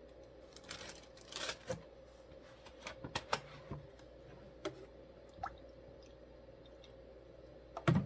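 Kitchen handling noises: rustling and light clicks as rosemary sprigs are taken from a plastic zip bag and dropped into a glass jar, a few scattered clicks, then a low thump near the end as a plastic gallon jug is set down on the counter.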